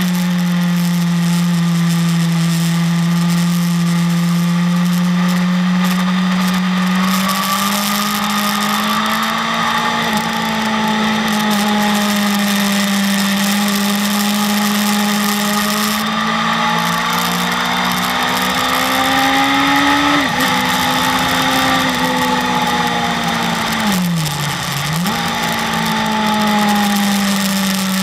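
BMW S1000RR inline-four engine running at steady high revs on track, its pitch drifting slowly up and down, over a steady rush of wind noise. About 24 seconds in the revs dip sharply and climb straight back.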